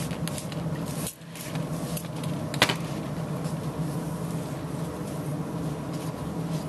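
A few quick hisses from a trigger spray bottle misting a detailing coating, then a sharp click about two and a half seconds in, over a steady low hum.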